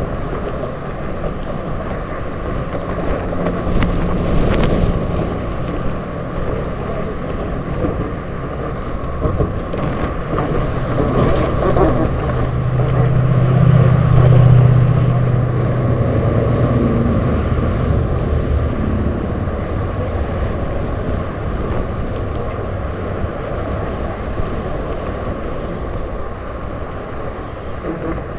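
Steady road traffic passing close by on the bridge roadway, with wind on the microphone. A louder low hum swells and fades around the middle.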